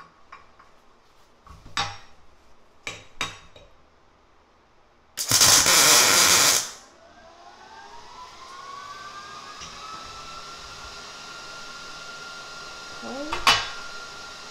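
A MIG welder striking a short tack weld: about a second and a half of loud arc noise after a few light clicks. Straight after, a fan spins up with a rising whine and then runs steadily, with a sharp click near the end.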